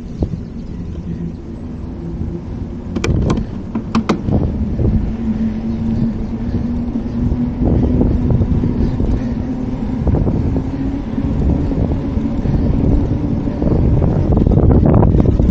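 Wind buffeting the bike-mounted camera's microphone over the rumble of a bicycle rolling on paving tiles. A few sharp clicks come about three to four seconds in, and a steady low hum runs through the middle.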